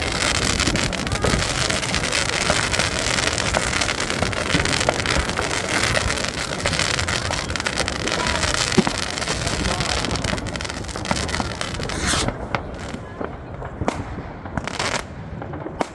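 New Year's Eve fireworks: a dense, continuous mass of crackling and bangs from many rockets and firecrackers going off at once, thinning after about twelve seconds into separate bangs and short crackling bursts.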